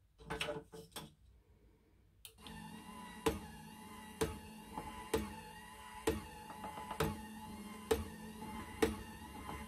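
Small electric motors and gearboxes in a model Bismarck battleship's forward gun turrets, whirring steadily as the turrets rotate and the guns elevate. A few clicks come in the first second, the whir starts a couple of seconds in, and a sharp click repeats about once a second.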